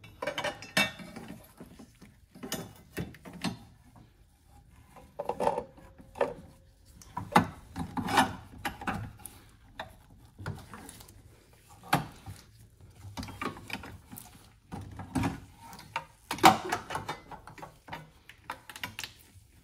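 A replacement painted metal coolant pipe being worked into place in an engine bay: irregular knocks, clunks and scraping as the pipe rubs and bumps against hoses, brackets and body panels.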